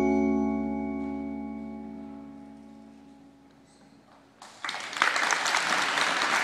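An indoor percussion ensemble's final chord rings and slowly fades. About four and a half seconds in, audience applause breaks out.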